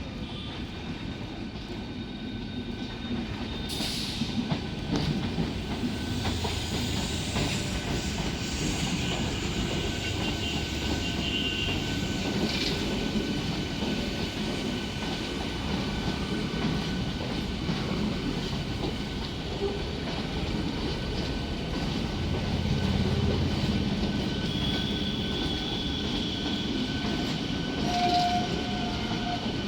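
Passenger train rolling along the track: a steady rumble of wheels on rails, with a few sharp clacks from the rail joints and a thin high squeal of the wheels that comes and goes.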